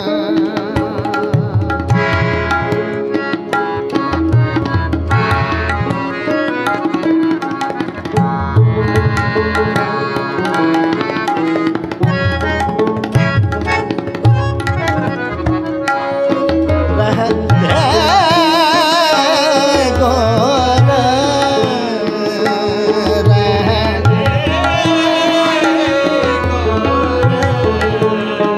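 Kirtan music with tabla playing a steady rhythm under sustained melodic accompaniment. From about 18 s a higher, wavering, ornamented melody line joins in.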